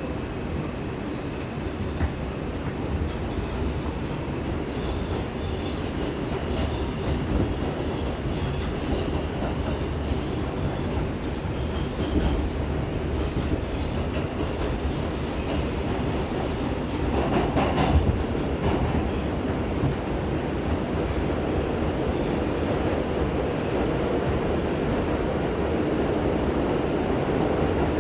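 R142 subway train running between stations: a steady rumble of wheels on rail with occasional clicks, and a louder stretch of wheel noise about two-thirds of the way through.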